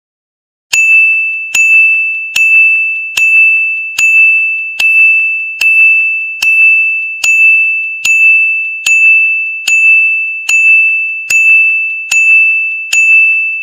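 A single high bell-like ding, struck about every 0.8 seconds, sixteen times in all. Each strike rings on into the next.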